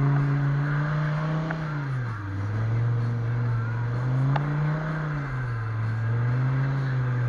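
Car engine running hard as the car drives in circles, its pitch falling about two seconds in, climbing again, then falling once more after five seconds.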